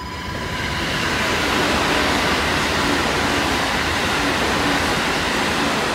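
JR Central electric train passing at speed: a steady rush of wheel and rail noise that swells during the first second and then holds.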